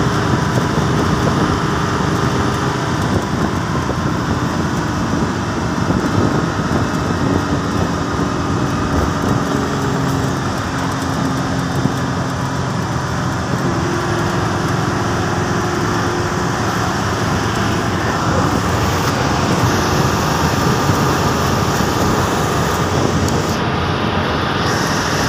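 Passenger coach cruising at motorway speed, heard from inside the driver's cab: a steady drone of engine, tyre and wind noise with no breaks.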